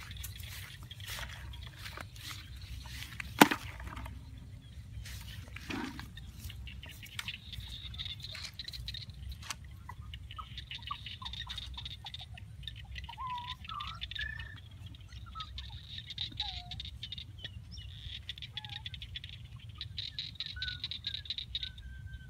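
Open-air field ambience: a steady high, rapidly pulsing chorus, with a low rumble of wind on the microphone, a few short faint calls, and one sharp click about three seconds in.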